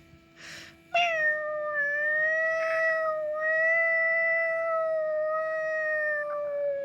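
A cat giving one long, drawn-out yowl from about a second in, lasting nearly six seconds at a steady pitch and dropping slightly at the end: a cat calling to be let into a room.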